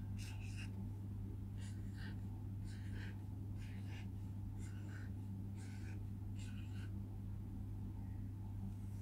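Pen scratching on paper in short separate strokes, about one a second, as small teardrop shapes are drawn. A steady low electrical hum runs underneath.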